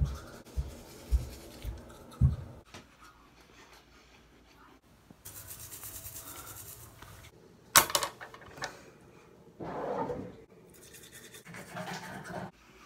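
Manual toothbrushes scrubbing teeth in rhythmic back-and-forth strokes, with a few soft knocks in the first couple of seconds and one sharp knock near the middle.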